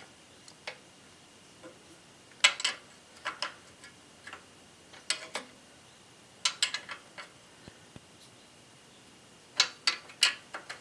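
Small wrench clicking and clinking on the governor arm's clamp bolt of a small engine as the bolt is tightened to lock the governor setting. The clicks come in short clusters of two to four, every second or two.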